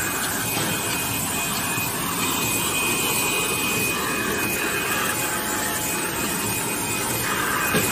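DSY 110 box-shell gluing machine running: a steady mechanical noise with a thin high whine and a faint beat that repeats about once a second as the mechanism cycles.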